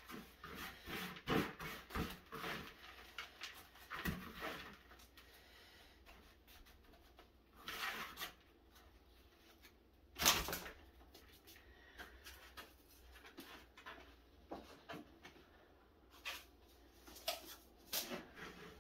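Potting soil being scooped and scraped by hand in a plastic tub and pressed into plastic seed-starting cell trays: faint, scattered short rustles and scrapes, with a couple of louder scrapes about eight and ten seconds in.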